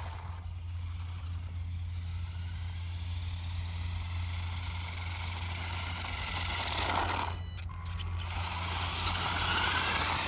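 Battery-electric radio-controlled car's motor whining as it drives, the whine rising in pitch as it speeds up around the middle and again near the end, over a steady low hum.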